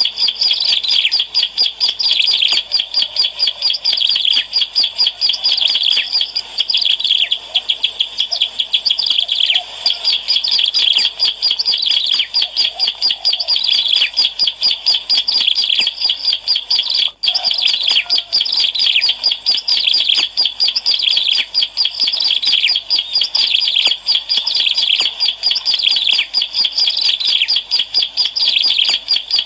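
Ciblek alang-alang, a prinia, singing vigorously in a fast, unbroken stream of high, rapidly repeated chirps, with a brief break about seventeen seconds in.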